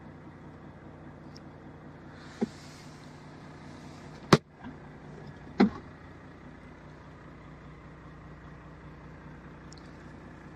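Steady low hum of a truck's engine idling, heard inside the cab, with three sharp knocks in the middle, the loudest about four seconds in.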